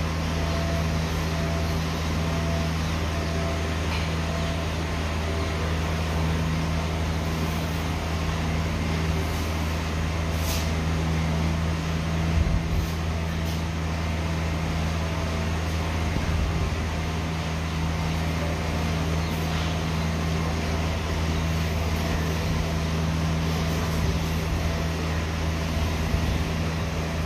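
Steady low machine hum, as of an electric motor or compressor running continuously, with a few faint small clicks over it.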